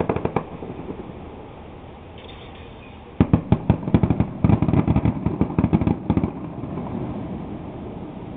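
Fireworks going off: a few sharp cracks, then about three seconds in a sudden dense run of rapid bangs and crackles lasting around three seconds, fading to a low rumble.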